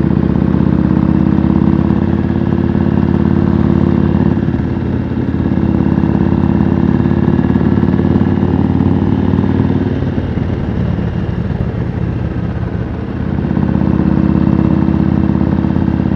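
Yamaha Road Star's air-cooled V-twin running through loud pipes at road speed, with wind noise. The engine note drops away for a few seconds about two-thirds through, then picks up again.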